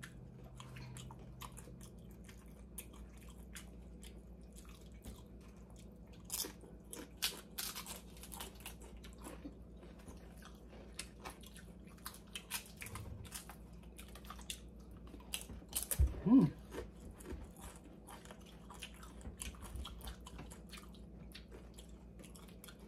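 Close-up chewing and crunching of nachos made with baked corn tortilla chips, many short crisp crunches at an irregular pace. One short, louder sound with a brief pitch comes about sixteen seconds in.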